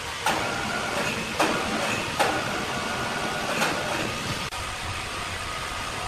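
Steady sawmill machinery noise with four sharp knocks spread over the first four seconds, as steel wire-rope slings are rigged around a large timber beam.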